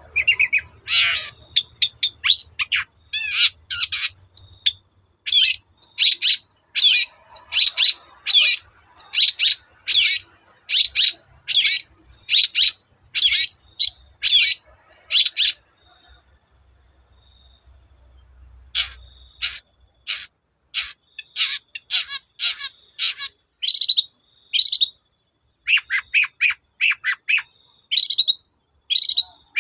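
Long-tailed shrike (cendet) singing: a rapid run of short, sharp, downward-sweeping notes, about two to three a second, breaking off for a couple of seconds around the middle before resuming.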